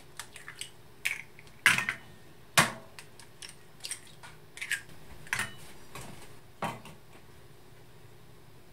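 Eggs being cracked into a glass bowl: a run of sharp clicks and taps as the shells are knocked and broken open, loudest about two and a half seconds in, stopping at about six and a half seconds.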